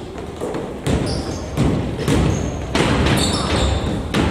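A basketball bouncing on a gym floor several times, each bounce ringing in the hall, with short high squeaks of sneakers on the court in between.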